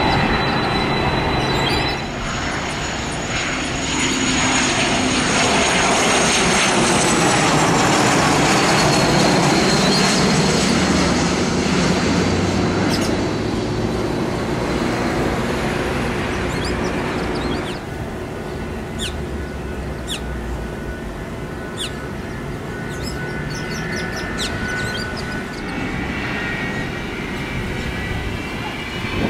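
Jet aircraft engines running in a series of cut-together clips. A business jet lands, its high engine whine falling in pitch as it passes. A rear-engined twin-jet airliner then taxis, with a steady whine that begins to rise near the end.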